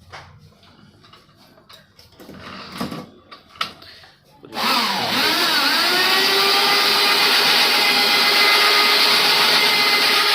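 A few light clicks and knocks, then about four and a half seconds in a cylinder boring machine's motor switches on and runs loudly and steadily. Its whine wavers as it comes up to speed, then holds a steady pitch while it bores the cylinder of a Honda 110 scooter engine.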